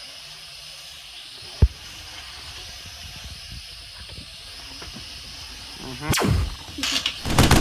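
Small quadcopter propellers giving a steady high hiss, broken by one sharp knock about a second and a half in and a whoosh about six seconds in. Just before the end a rapid stream of machine-gun sound effects starts.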